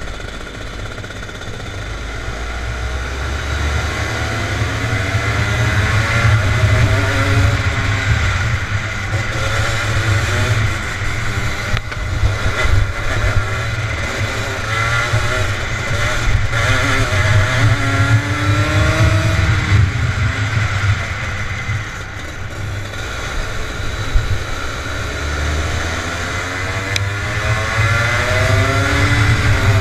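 Rotax Junior kart's 125 cc single-cylinder two-stroke engine racing at full load, heard from on board, its pitch climbing as it revs out and dropping back again, over and over.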